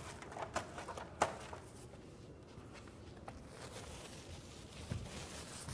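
Faint handling noises: a few light clicks in the first second or so, then soft rustling and scraping.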